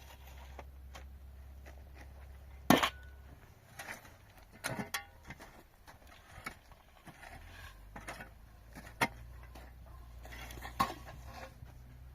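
Irregular clinks and knocks of objects being handled, about nine in all, the loudest a little under three seconds in, over a low steady hum.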